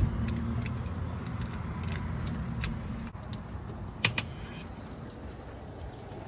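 Keys jingling on a keyring as a key goes into a door lock and is turned, with two sharp clicks of the lock about four seconds in. A low steady rumble sits underneath and fades out about three seconds in.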